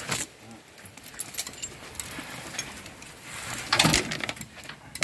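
Heavy steel tyre chains clanking and jangling as they are handled and draped over a truck's rear tyre to give grip in mud, with a sharp clank at the start and a louder burst of rattling about four seconds in.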